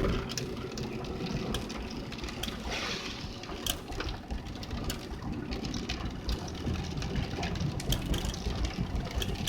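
Car driving, heard inside the cabin: a steady engine and road rumble with scattered small clicks and knocks.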